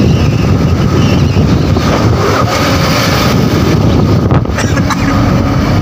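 Wind buffeting the phone's microphone at the open cab window of a moving pickup truck, over the steady rumble of the truck's road and engine noise.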